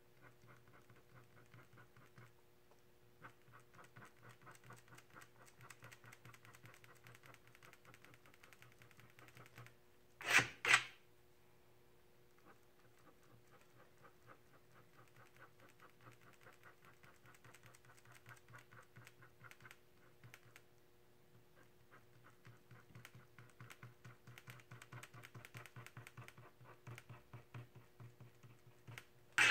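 Rapid, light scratching of a small pointed tool across a spray-painted sheet, etching fine lines into the paint in quick strokes with short pauses, over a steady faint hum. Two sharp loud knocks come close together about ten seconds in.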